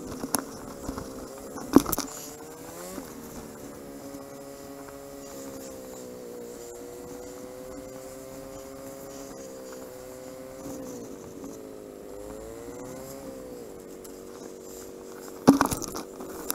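Motorcycle engine running while riding, its pitch rising and falling several times with throttle and gear changes. Two sharp knocks cut across it, one about two seconds in and a louder one near the end.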